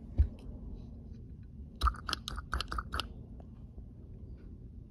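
A low knock, then a quick run of about six sharp clicks from the tickler pump of an SU Rivera Eliminator II carburetor being worked by hand with the main jet plugged.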